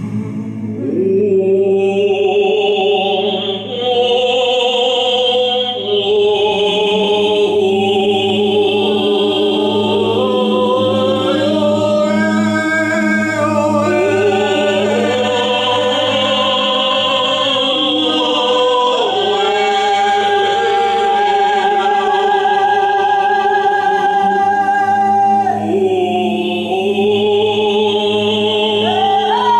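Improvised wordless singing by a man and a woman: a melody that glides between notes with vibrato and holds a long higher note in the second half. A steady low drone runs under it throughout.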